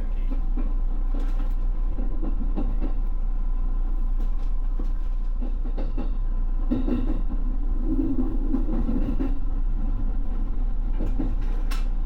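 Electric commuter train running, heard from inside at the front cab: a steady low rumble of wheels on rail, with scattered clicks as the wheels pass over rail joints and points.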